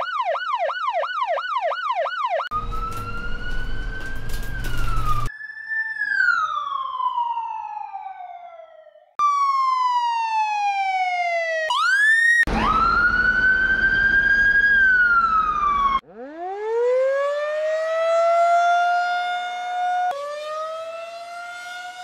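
Ambulance sirens in a run of short clips cut one after another: a fast repeating yelp, long falling wails, a steady held tone that drops away, and a siren winding up slowly and then holding its pitch. Two of the clips have a low road-traffic rumble under the siren.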